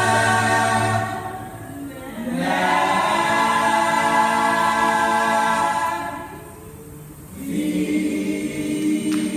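Mixed church choir singing in long held chords, dropping softer twice before swelling again near the end.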